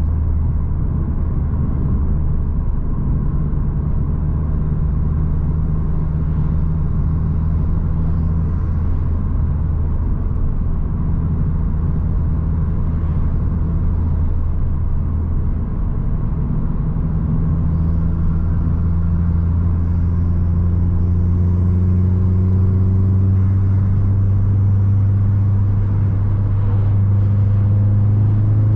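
Opel Astra G Bertone's 2.0 turbocharged four-cylinder engine droning at a steady cruise, then climbing slowly in pitch from about halfway as the car gently accelerates.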